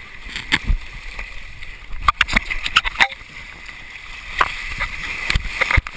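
Water rushing down a fibreglass waterslide channel as a rider slides through it, with frequent sharp splashes and knocks of water hitting a camera carried down with him.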